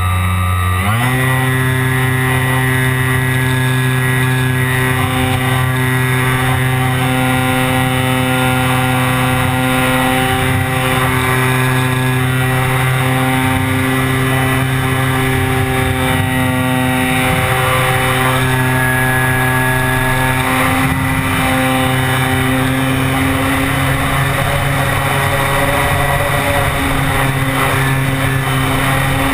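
Brushless electric motor and propeller of a ParkZone Radian RC glider, running with a steady hum heard from the camera on board. Its pitch rises about a second in and then holds level.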